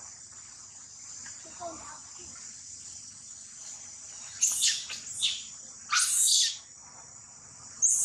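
Young macaque screaming in distress: a run of shrill screeches that fall in pitch from about halfway in, one of them longer, over a steady high insect drone.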